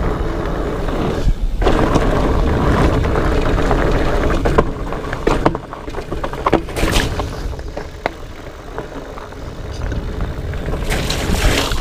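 A Specialized Fatboy fat bike being ridden over wet, rocky singletrack: wind rumbling on the microphone over the tyres' rolling noise, with scattered knocks and rattles from the bike. The noise eases about halfway through and builds again near the end.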